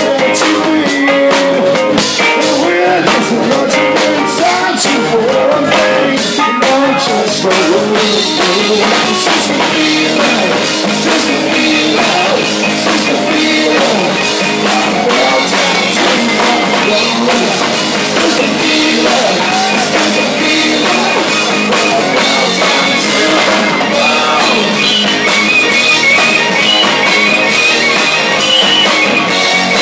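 Live rock band playing: a man singing over electric guitar, electric bass and a drum kit.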